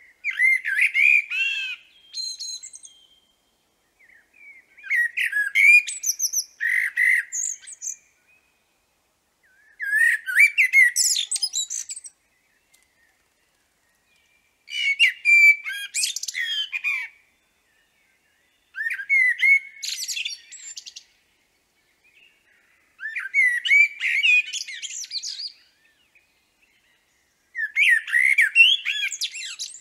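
Eurasian blackbird singing: seven separate phrases of about two to three seconds each, fluty warbled notes mixed with higher squeaky twitters, with pauses of a second or two between them.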